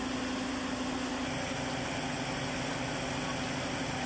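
Steady hum and hiss with one constant low tone, like an engine running at idle, holding even throughout with no knocks or clanks.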